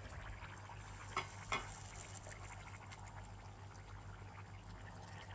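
Tomato stew cooking in a covered pot: a faint steady bubbling hiss, with two light clicks a little over a second in.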